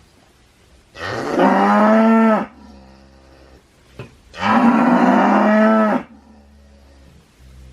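A cow mooing twice, two long calls about two seconds apart, each rising in pitch at the start and then holding steady. There is a short click between them.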